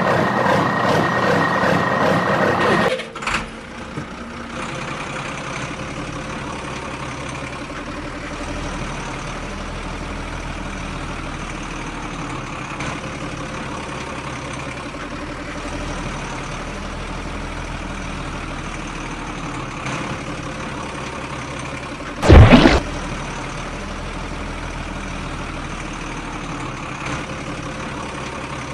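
A vehicle engine idling steadily. For the first three seconds a louder, busier sound plays over it and then cuts off abruptly. About 22 seconds in there is one loud, brief, deep sound lasting under a second.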